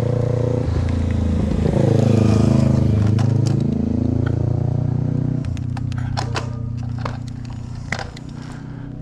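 Motor vehicle engine running close by. Its pitch holds, falls and rises again over a few seconds, then steadies. Scattered light clicks and knocks come in the second half.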